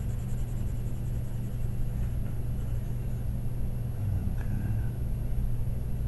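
A steady low hum, with the faint light scratching of a soft graphite pencil shading on paper.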